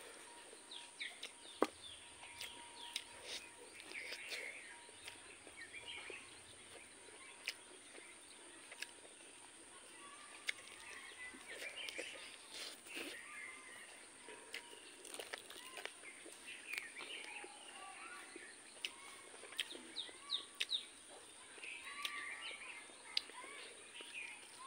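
Close-up eating sounds of chicken curry and rice eaten by hand and chicken meat bitten off the bone: chewing and sharp mouth clicks and smacks at irregular moments. Birds chirp in the background throughout.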